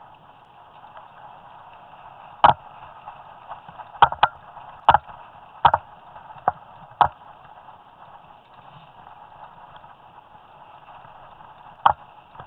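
Mountain bike ridden fast over rough forest singletrack, heard through a head-mounted camera: a steady rushing noise broken by sharp knocks and rattles as the bike and camera jolt over bumps, several between about two and seven seconds in and one more near the end.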